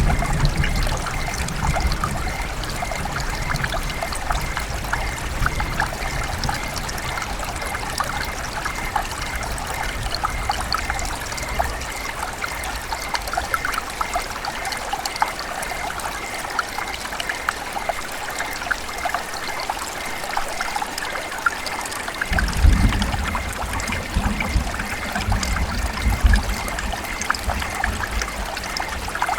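River water running and trickling in a steady, splashy babble. A low rumble underneath fades away in the first seconds and comes back about three-quarters of the way through.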